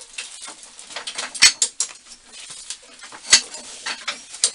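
Steel machine-shop tooling being handled: irregular metal clinks and knocks, with two louder clanks about a second and a half in and a little past three seconds.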